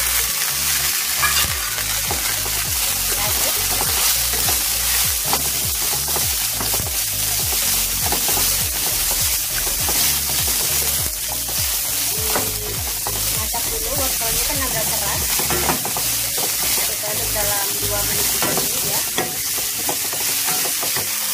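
Julienned carrot strips sizzling in hot oil in a wok with chopped garlic and ginger. The sizzle jumps up at the start as the carrots go in. A wooden spatula stirs and scrapes them against the pan in a steady run of strokes.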